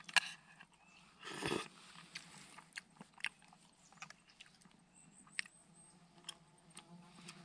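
Light clicks and taps of a metal utensil against an aluminium mess tin as noodles are stirred and lifted out of soup, with a brief rustle about a second and a half in.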